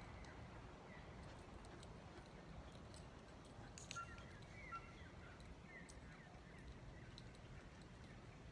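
Near silence: faint outdoor ambience with a low rumble, a few faint high chirps and some scattered faint clicks.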